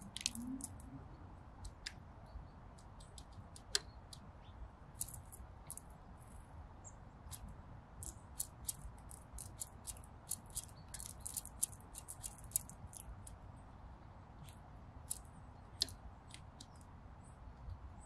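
Red squirrel gnawing and chewing food: faint, irregular crunchy clicks that come thicker around the middle, over a low background rumble.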